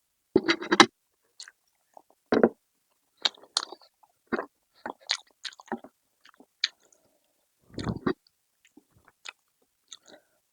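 A person chewing and biting food close to the microphone: irregular short wet smacks and clicks, with a louder cluster about half a second in and again near eight seconds.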